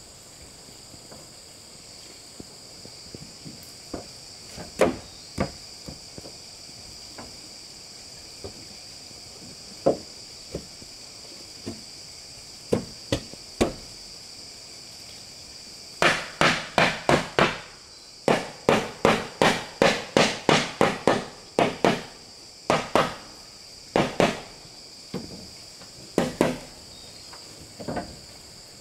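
Hammer striking wood as a wall is built: scattered single blows at first, then from about halfway quick runs of blows, roughly three to four a second. Insects shrill steadily throughout.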